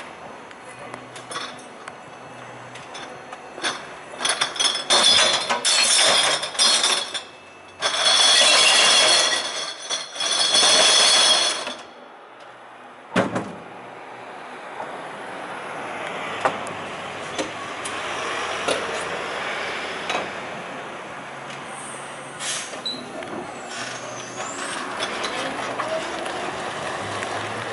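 Glass bottles and jars crashing and clinking in loud bursts for about eight seconds as crates of glass are emptied onto the truck's sorting platform, then a single knock. After that comes the steady, fairly quiet running of the fully electric glass-collection truck pulling away, with tyre and road noise.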